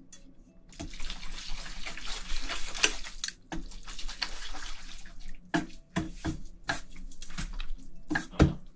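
Chopsticks mixing cold naengmyeon noodles and red spicy sauce through the broth in a stainless steel bowl: a steady wet stirring noise, then a run of sharp clicks and taps in the last few seconds.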